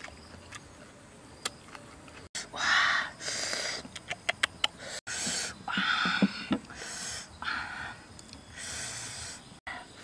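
Eating sounds: a series of loud, wet slurps and sucks as rice noodles and sauce are eaten from the fingers, with a quick run of smacking clicks near the middle.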